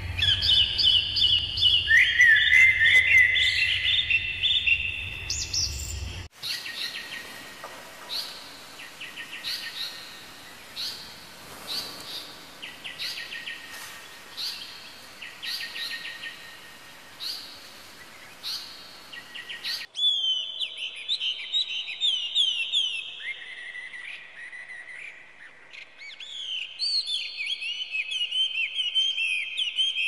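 Birdsong in three spliced segments. First, about six seconds of rapid, overlapping chirping from small birds over a low hum. Then a string of short, evenly spaced calls about once a second from an Indian paradise flycatcher, and from about twenty seconds in, the fast, varied song of a hwamei.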